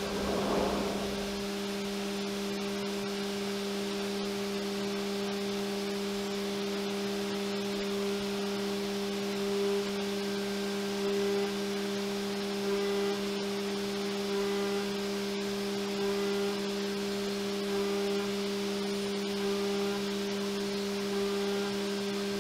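Haas CNC mill spindle running with a steady hum as an end mill contours a hardened steel knife blade under spraying coolant. The level swells slightly about every second and a half as the cutter works along the contour.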